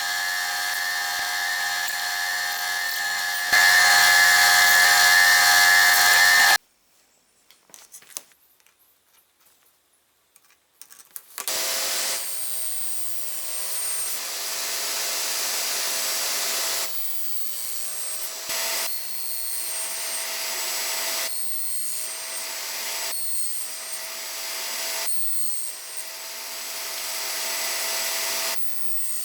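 Electric power tool working wood: its motor runs steadily, gets louder about three and a half seconds in, and stops. After a few seconds of near quiet with light knocks, it starts again and runs with brief dips every second or two.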